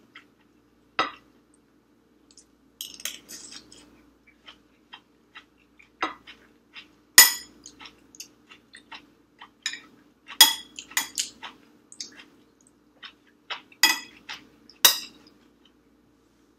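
A metal spoon clinking and scraping against a glass rice bowl and plates as food is scooped up. The clinks are sharp and come at irregular intervals, the loudest about seven seconds in and several more between ten and fifteen seconds.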